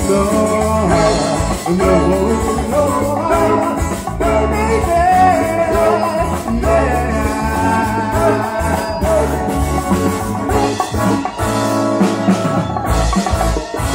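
Live band playing a soft-rock song: sung vocals over guitars, bass and drums.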